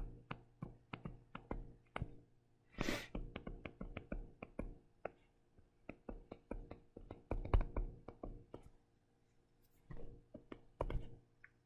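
Stylus writing on a tablet screen: irregular light taps and short scratches as the letters are written, with a brief hiss about three seconds in.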